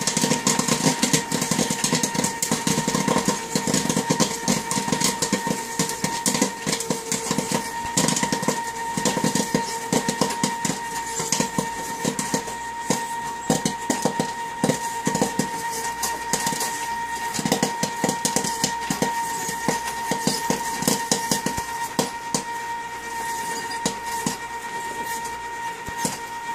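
Kettle-style popcorn machine popping a batch of corn: rapid, irregular pops over a steady high hum from the machine. The popping thins out toward the end as the batch nears done.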